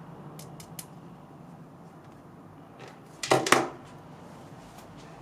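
Handling noise: a few faint clicks, then a short burst of louder clicks and knocks a little past three seconds in.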